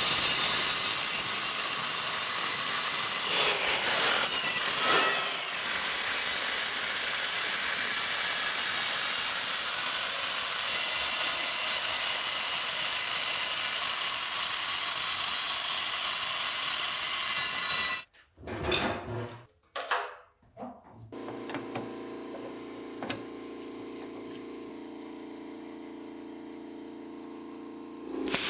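Plasma cutter cutting 14-gauge sheet steel, a steady hiss that stops about 18 seconds in. A few short knocks follow, then a quieter steady hum with several held tones.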